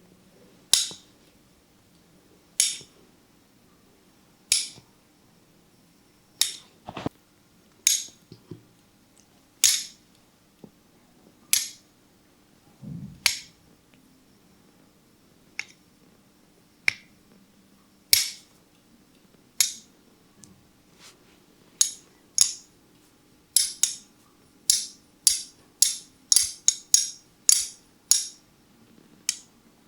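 A series of sharp, dry snaps, about one every two seconds, quickening to several a second near the end.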